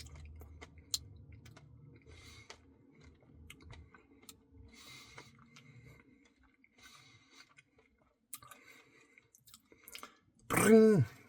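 Close-up chewing and mouth sounds of a person eating a Reese's Pieces Cookie Dough Blizzard: quiet, scattered soft clicks and smacks. Near the end comes a short, loud vocal sound with a falling pitch.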